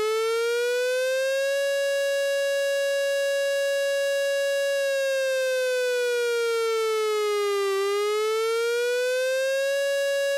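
Emergency-alert siren tone: it rises to its pitch and holds steady for about three seconds, then slides slowly down and back up, holds again, and cuts off suddenly at the end.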